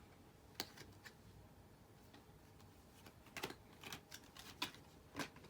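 Near silence in a small room, broken by about six faint, sharp clicks and taps at irregular intervals, more of them in the second half.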